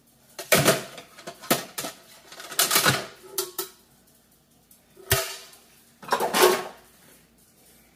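Metal bread pan from a KBS bread maker being knocked and shaken upside down to release the baked loaf: a series of clattering knocks in bunches, with one sharp, heavier knock about five seconds in.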